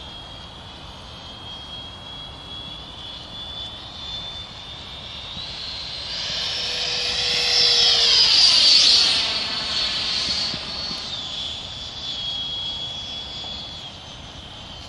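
A 90 mm electric ducted fan on an RC jet whining in flight as the model makes a pass. The whine grows louder to a peak about eight seconds in, then drops in pitch as the jet goes by and fades away.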